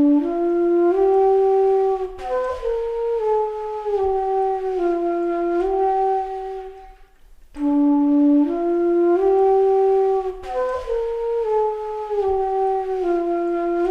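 Background music: a slow melody on a wind instrument, playing one phrase of about seven seconds and then repeating it.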